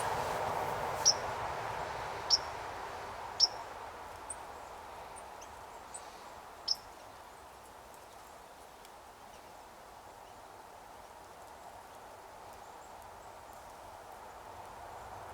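Small songbirds giving short, high call notes: four clear ones in the first seven seconds, with fainter chips among them. Under them runs a soft background rush that fades away over the first half.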